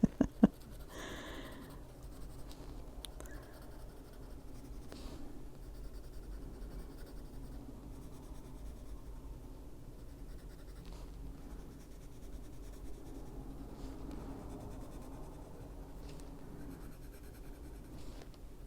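Prismacolor colored pencil scratching steadily across paper as a page is coloured in, with a couple of sharp clicks at the start.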